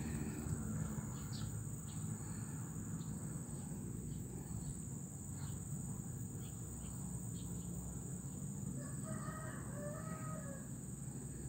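A rooster crowing once, a drawn-out call about nine seconds in, over a steady high insect drone.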